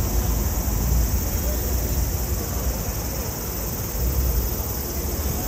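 City street ambience: a steady high buzz of summer cicadas over a low rumble of traffic.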